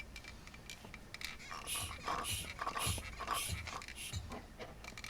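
Hand-operated brake bleeder vacuum pump being worked in quick strokes, sucking old oil and grease out of a Miata shifter housing: rhythmic airy hissing, about two strokes a second, starting about two seconds in.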